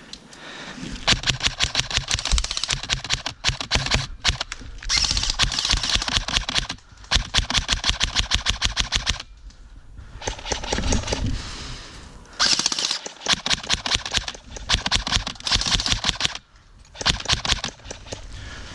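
Airsoft guns firing full auto: long bursts of rapid clicking shots, several seconds each, broken by short pauses.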